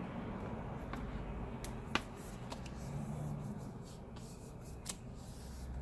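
Light handling noise with a few sharp clicks and taps, the clearest about two seconds in, over a steady low hum.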